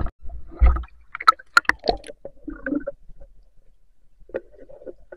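Water splashing and sloshing with several sharp knocks as a spearfisher ducks under the surface of a shallow river, then fainter muffled clicks under water.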